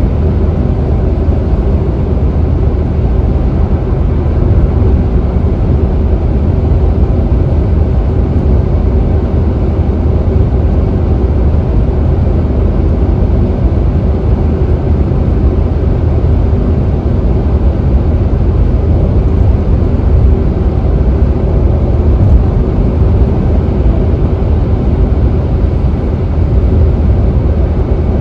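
Steady low rumble of a car cruising at freeway speed, heard from inside the cabin: tyre and road noise with engine hum.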